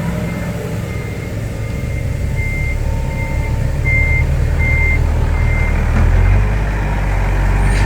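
A reversing alarm beeping at a steady pace over a heavy diesel engine running. The beeps stop near the end as the engine grows louder.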